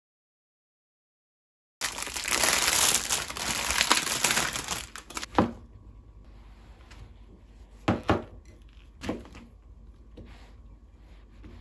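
Plastic packaging crinkling loudly for about three seconds, starting about two seconds in. Then a kitchen knife cuts through the base of a clump of shimeji mushrooms, knocking a few times on a plastic cutting board.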